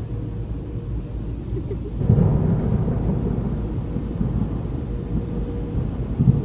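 Deep rumbling noise with a faint steady hum in a car-wash tunnel, heard from inside a car. It swells about two seconds in.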